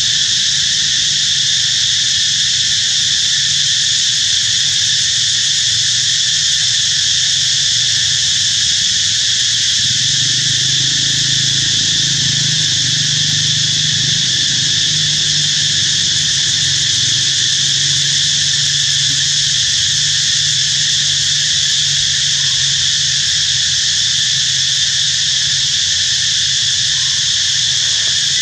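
Steady, high-pitched insect chorus droning without a break, with a low hum underneath that grows louder for several seconds in the middle.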